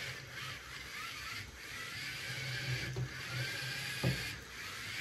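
Small electric gear motors of a four-wheeled line-following robot car whirring as it drives back and forth along the track, stopping and starting. A single sharp knock about four seconds in.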